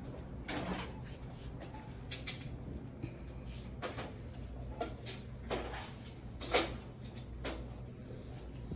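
Store ambience: a steady low hum with a scatter of short, light knocks and clatter, about one every second or so, the loudest a little after six and a half seconds in.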